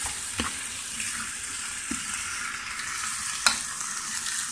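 Chicken pieces with onion and tomato sizzling in a hot frying pan as a wooden spoon stirs them, with three knocks of the spoon against the pan, the last the loudest.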